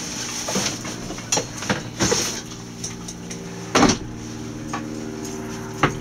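A steady low mechanical hum with scattered knocks and clatters, the loudest a little before four seconds in, and short bursts of hiss.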